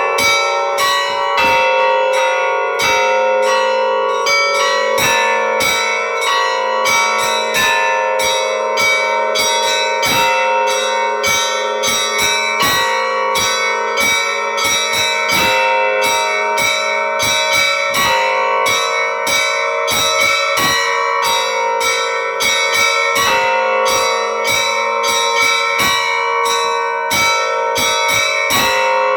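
Church bells ringing in a fast, continuous peal: bells struck several times a second, their tones ringing on beneath the strikes.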